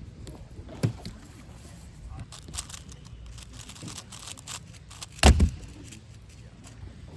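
Scattered light plastic clicks and clatter from puzzle handling during a 5x5 speedcubing round, with two louder knocks: one about a second in and a sharper double knock a little past five seconds.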